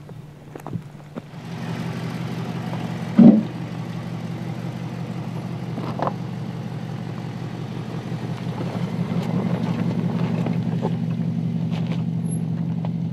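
2015 Porsche Cayenne S's 3.6-litre twin-turbo V6 running steadily at low revs while the SUV crawls over a dirt off-road trail. The engine comes in about a second and a half in and grows a little louder in the second half. A single loud thump comes about three seconds in, with a smaller click near the middle.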